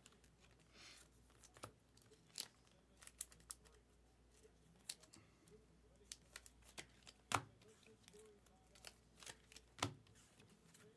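Trading cards and rigid plastic top loaders being handled on a table: scattered light clicks and taps, the loudest about seven seconds in and again near ten seconds, with a short soft rustle about a second in.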